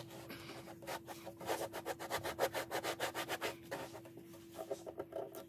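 Quick back-and-forth rubbing strokes on the non-skid sheet being worked onto the boat deck, about six a second for two seconds in the middle, with scattered strokes before and after.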